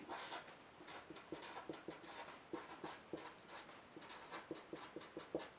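Marker pen writing on paper: a quiet, quick run of short scratchy strokes as letters are drawn.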